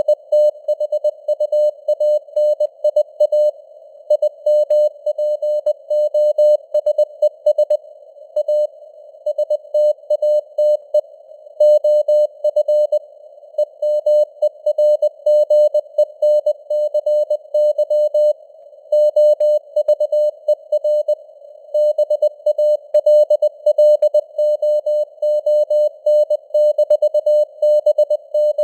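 Morse code sent at 20 words per minute: a single mid-pitched beep keyed on and off in dots and dashes over a hiss of simulated radio noise. The signal strength slowly swells and fades (QSB).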